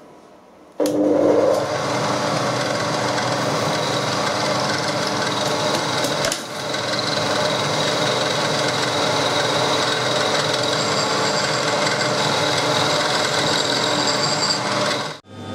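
Milling machine running a spiral end mill that cuts into a metal block, a sustained grinding, rasping cut over the steady hum of the spindle. It starts abruptly about a second in.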